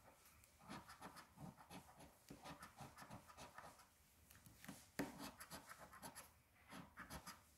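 A coin scraping the coating off a scratch-off lottery ticket: faint, quick rubbing strokes in short bursts, with a brief pause about four seconds in.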